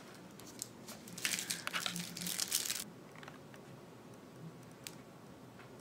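A plastic piping bag of icing crinkling in gloved hands for about two seconds, then one faint click near the end.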